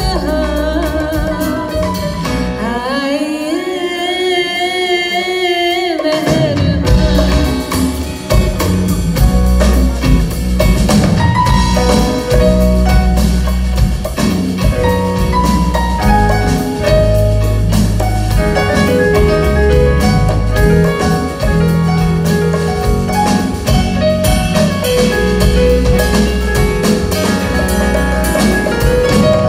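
A woman singing live with a band: electric bass, acoustic guitar and drum kit. About two seconds in the band drops away and she holds one long wavering note almost alone; the full band with drums comes back in about six seconds in.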